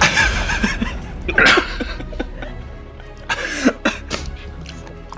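A man coughing in bursts near the start, about a second and a half in, and again past three seconds, over background music. It is the coughing of someone overwhelmed by the burn of very hot sauce.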